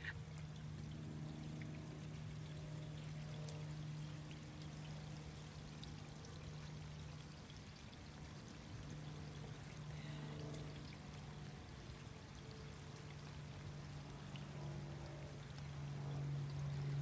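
Rainwater pouring and trickling down a cup-style rain chain, with scattered drips, over a steady low hum.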